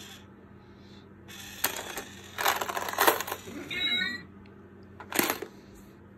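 A box-shaped cat coin bank being pushed and tipped by a cat, rattling and clattering with coin-like clinks for about three seconds. A short meow comes near the end of the clatter, and a single sharp knock follows about five seconds in.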